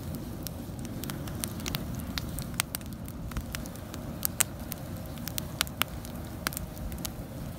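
Wood fire crackling with frequent sharp pops, over a steady low rushing that sounds like a jet: gas pressure built up inside the capped steel pipe case-hardening container is escaping through its loose threads.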